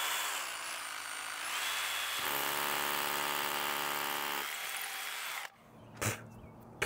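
DeWalt 20V Max cordless rotary hammer drilling into a concrete block wall. Its pitch sags and recovers in the first couple of seconds, it then runs steadily, and it stops abruptly about five and a half seconds in, followed by a couple of light clicks.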